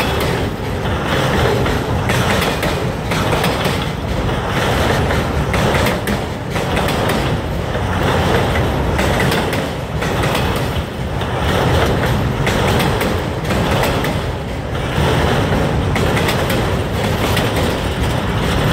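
Freight train cars rolling past: a steady heavy rumble of steel wheels on the rails, swelling and dipping about every one and a half to two seconds as each car goes by, with repeated clacks of wheels crossing the rail joints.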